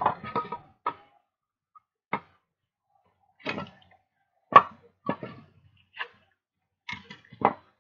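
Scattered knocks and short scrapes of wooden 2x4 boards being handled and shifted on a concrete floor, about nine in all, the loudest about four and a half seconds in.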